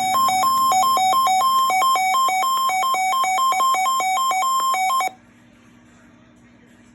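Electronic weather-radio alert tone: two buzzy pitches, one near 1 kHz and a lower one, alternate in an uneven beeping pattern and cut off abruptly about five seconds in. After that only a faint steady hum and hiss remain.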